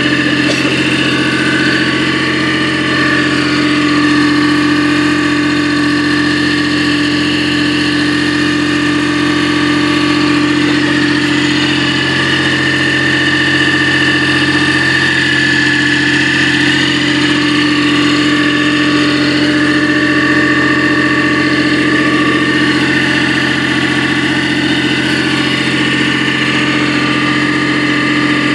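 Engine-driven portable hydraulic tubewell drilling machine running steadily: a constant hum with a higher steady tone on top.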